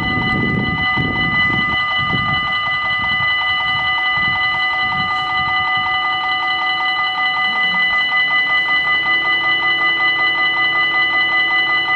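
Electronic level-crossing warning bells ringing continuously with a bright, multi-tone ring while the crossing is closing for a train. A low rumble fades out in the first three seconds, and a lower, pulsing tone joins about nine seconds in as the barriers start to lower.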